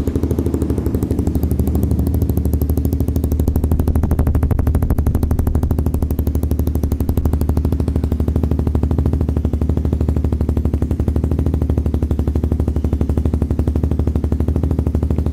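Motorcycle engine idling steadily through an aftermarket carbon slip-on muffler with no dB killer fitted in the link pipe or the tip. The open exhaust note is loud, with an even, rapid pulse that holds a constant pitch, and it echoes off the walls and roof of a closed room.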